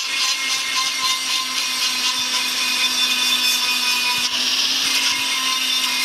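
Pencil-type rotary grinder with a small sanding drum running steadily with a high whine and hiss, sanding the freshly case-cut aluminium crankcase to smooth its rough machined finish.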